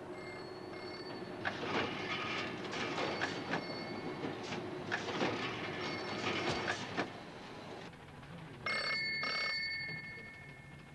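Irregular mechanical clattering for most of the time, then near the end a telephone rings: one double ring of two short bursts.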